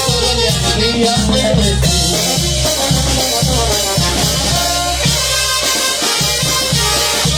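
Latin band playing an instrumental passage with no singing, over a steady bass-and-drum beat with a shaker.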